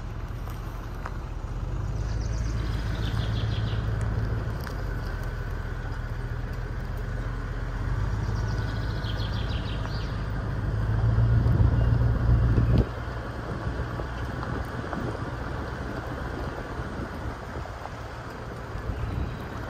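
4x4 SUV driving slowly on a dirt forest track: a low, steady engine rumble with tyre noise. The engine gets louder a little past the middle, then drops off suddenly.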